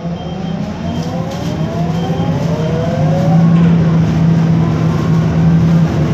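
Interior sound of a MAN Lion's Classic city bus accelerating, its MAN E2876 CNG engine under load with a steady low drone. The ZF Ecomat 6HP504C automatic gearbox whine rises in pitch for a few seconds as the bus gains speed, and the sound grows louder.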